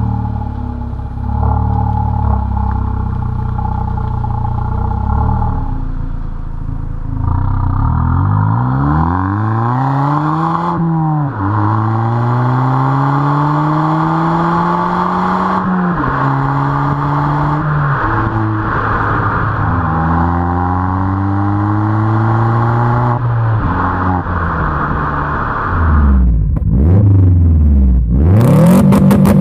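Volkswagen Polo BlueGT's turbocharged four-cylinder heard at its twin exhaust tips: it runs steadily at low revs, then pulls away and accelerates through several gears, the pitch climbing and dropping back at each upshift. About 26 s in, a 2007 Subaru Impreza WRX's turbocharged flat-four revs through an HKS Hi-Power aftermarket exhaust.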